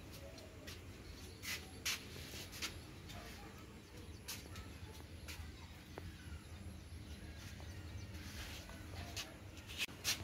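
Faint outdoor ambience with a steady low rumble and scattered faint bird chirps, broken by several short, sharp clicks or rustles, the loudest pair near the end.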